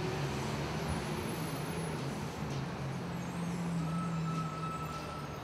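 City street traffic noise, with a heavy vehicle's engine running as a steady low drone.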